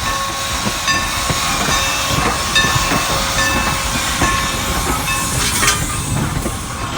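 Amtrak passenger train rolling close past on the track: a steady, loud rushing rumble of wheels on rail, with brief high metallic tones and light ticks.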